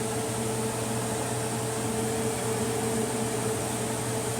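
Steady machine hum: a low drone and a higher steady tone over an even hiss, unchanging throughout.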